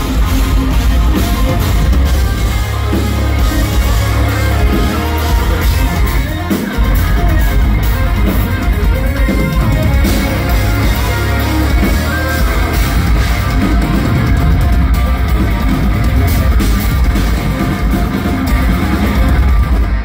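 Live instrumental progressive metal band playing loud: distorted electric guitars over bass and a drum kit.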